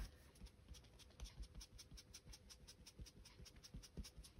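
Faint, irregular scuffs and taps of an ink blending tool being flicked across paper onto card.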